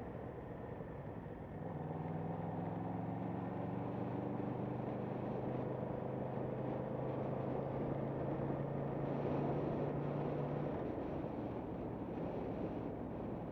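Motorcycle engine running at a steady, fairly low speed over wind noise. The steady engine note comes in about two seconds in and drops away a few seconds before the end.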